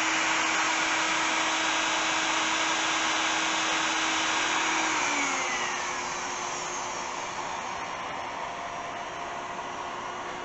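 Makita compact router on a Shapeoko XXL CNC running at high speed, a steady whine over loud rushing noise. A little past halfway its pitch glides down and the sound eases slightly as the router winds down at the end of the carving job, with a steady rushing noise still running afterwards.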